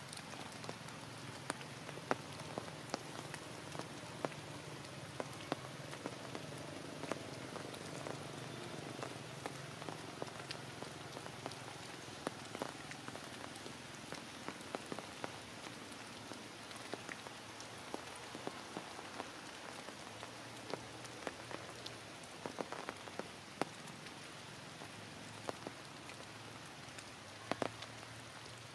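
Heavy rain falling, a steady hiss with many separate drops tapping sharply close by.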